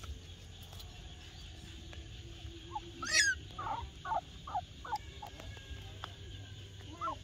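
Animal calls: a single sharp squeal about three seconds in, then a run of about six short chirping calls over the next two seconds, over a low steady background hum.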